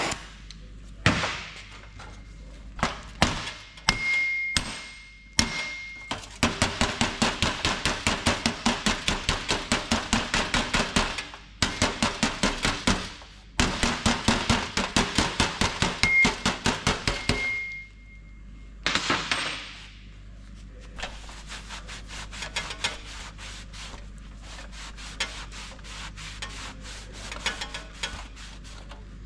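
Hammer-and-dolly work on a heat-shrunk spot in a 1929 Ford Model A door's steel panel: a few single blows, then fast runs of about five blows a second for some ten seconds. A short hiss follows, then quieter rapid tapping.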